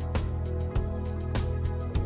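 Background music with sustained tones and a steady beat, a little under two beats a second.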